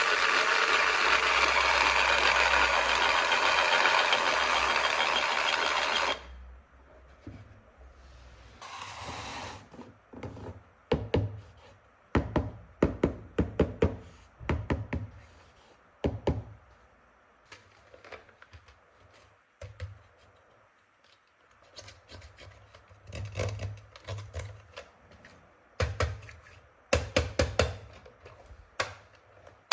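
A battery-powered toy power tool runs with a steady whir, then cuts off suddenly about six seconds in. After that come irregular light clicks, knocks and rattles of plastic toy tools being handled.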